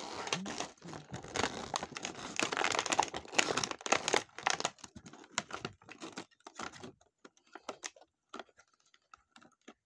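Clear plastic action-figure packaging crinkling and crackling as the figure is pulled out of it by hand. The crackling is dense for about the first five seconds, then thins to scattered crackles and ticks as the wire twist ties are worked loose.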